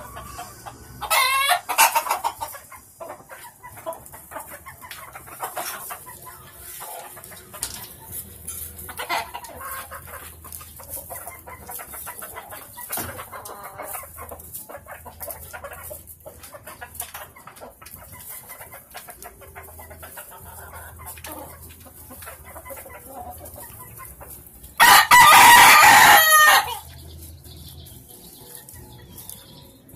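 Gamecocks crowing and clucking. A loud crow comes about a second in, and the loudest, a crow of about two seconds, comes near the end, with softer clucks between.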